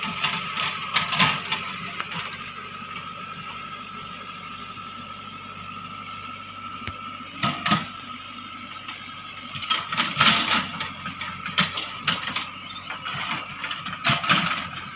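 JCB 3DX backhoe loader working, with a steady high whine from the machine and sharp metallic clanks and squeals from the bucket and linkage, loudest about halfway through and again near the end.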